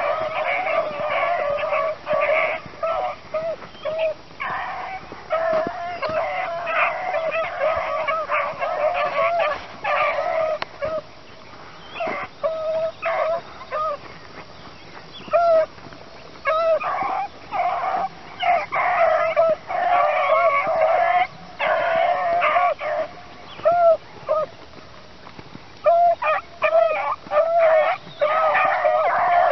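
A pack of beagles baying on a running rabbit's track, many voices overlapping. The cry thins to a few voices twice, then swells back.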